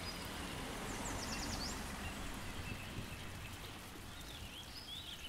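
Outdoor park ambience: a steady hiss and rumble of wind and distant noise, with faint birds chirping now and then, including a quick run of high notes about a second in.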